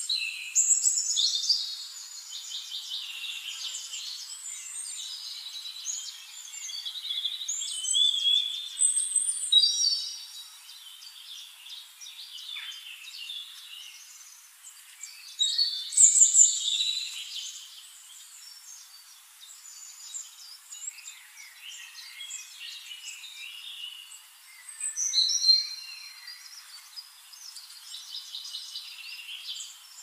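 Birds chirping and calling in many short, overlapping phrases, with louder bursts of calls about a second in, around a third of the way through, midway and again later on.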